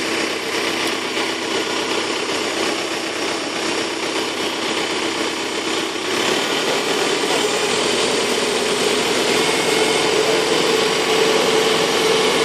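Tractor-drawn ALMA grape harvester rig running steadily, engine and machinery together, growing louder and fuller about halfway through.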